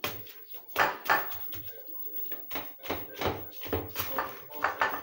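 Indistinct voices talking, with short sharp rustles and taps as a plastic-gloved hand handles fish fillets on a foam tray; the loudest come about a second in.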